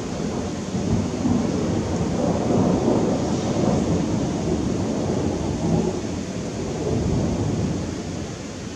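Thunder rolling and rumbling over steady rain hiss, the rumble slowly dying away near the end.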